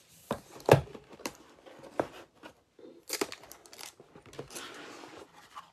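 Cardboard gift box being opened and handled: several sharp knocks and taps, the loudest just under a second in, then a stretch of rustling and crinkling of packaging.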